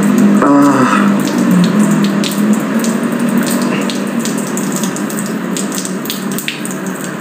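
A man urinating onto a bare floor: a steady splashing stream of liquid.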